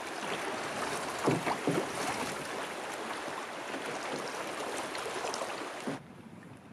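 Lake water splashing and rushing along the hull of a moving canoe on choppy water, with wind. About six seconds in it cuts to a much quieter, soft steady hiss.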